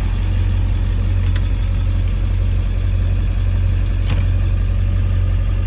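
Ford Super Duty pickup engine idling steadily, with two short clicks about a second and about four seconds in.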